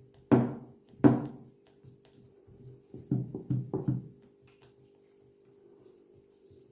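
Hands pressing and spreading pizza dough in a metal pizza pan: two sharp knocks near the start, then a quick run of soft thuds about three seconds in, over quiet background music with a steady held tone.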